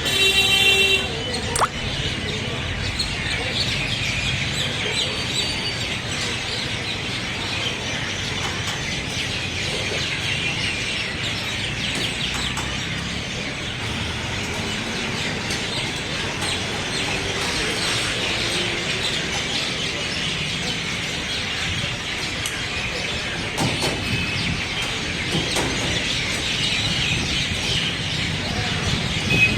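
Many birds chirping and calling continuously over a steady low rumble of road traffic. A brief pitched tone sounds at the very start.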